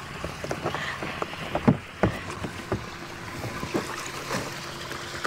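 Scattered knocks and taps of a foldable polypropylene kayak hull being carried and set down, over a faint steady hum.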